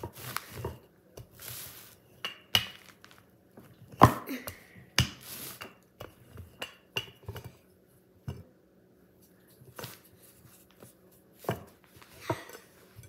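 Kitchen things being handled on a counter: irregular knocks and clinks of utensils and a cutting board, the loudest about four seconds in.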